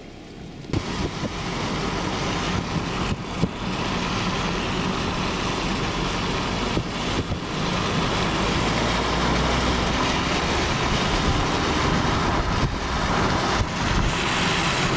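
Steady road and wind noise of a moving vehicle, picking up about a second in, with a few scattered knocks.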